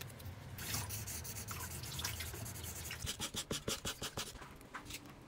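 Pen scratching on a kraft-paper tube: a steady rubbing, then a run of quick short strokes at about five a second.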